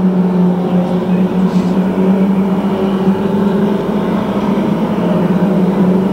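Saloon stock car engines running together at racing speed, a loud, steady drone.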